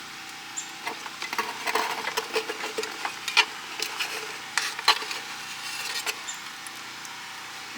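Irregular clicks, taps and light clatter of tools and parts being handled, busiest from about a second in until near the end, over a steady faint hum.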